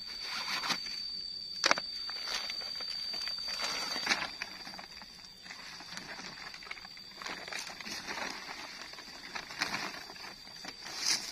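Silver foil-backed picnic mat crinkling and rustling as it is pulled from its drawstring bag and shaken open, with a sharp click about two seconds in. A steady high insect buzz runs behind it.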